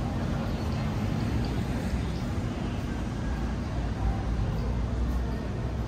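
Steady low engine rumble with a busy background hum.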